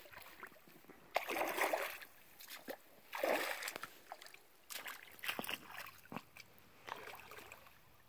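Rubber boots wading through shallow creek water: several separate splashing, sloshing steps.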